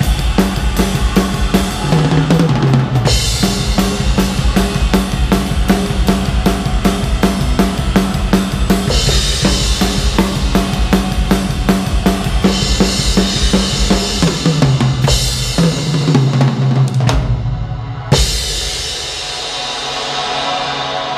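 Drum kit played fast with kick, snare and Istanbul Xist cymbals over a backing track with a bass line. After a short break the playing ends with one final crash about eighteen seconds in, and the cymbal and backing music ring out.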